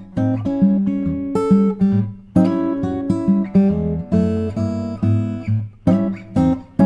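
Acoustic guitar music: a run of plucked and strummed notes and chords.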